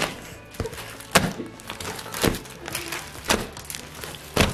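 A large mass of slime slapped and pressed down onto a tabletop by hand, a wet thud about once a second, four times.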